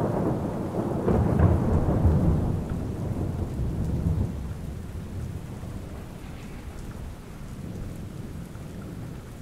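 Rolling thunder that rumbles in at once, is loudest over the first two seconds and dies away over the next few, leaving steady rain.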